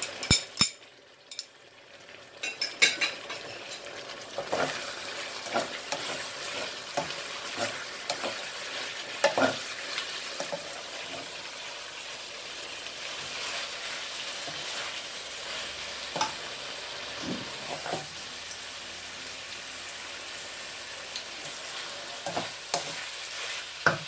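Creamy karahi curry sizzling in a frying pan while a wooden spoon stirs it, with the spoon scraping and knocking against the pan. There are a few sharp clicks in the first second or two, then a steady sizzle from about four seconds in.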